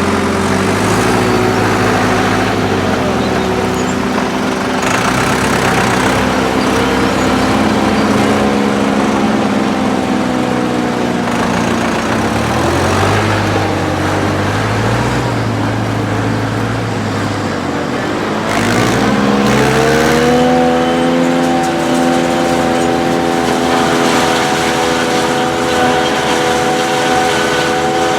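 Diesel tractor engines running under load during maize harvesting; the engine note wavers, then rises about two-thirds of the way through and holds at higher revs.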